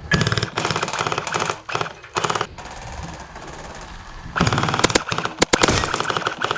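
Gel blasters firing in rapid full-auto bursts: a long burst, a short one about two seconds in, then another long burst from about four and a half seconds in with a few sharp cracks mixed in.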